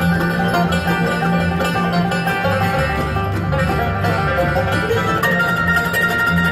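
Bluegrass band playing an up-tempo instrumental on banjo, mandolin, acoustic guitar and upright bass, with the five-string banjo taking the lead.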